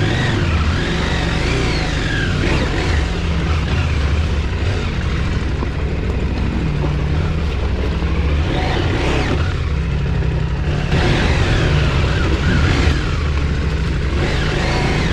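KTM 790 Adventure R's parallel-twin engine running while the bike is ridden on a dirt trail, its pitch rising and falling with the throttle.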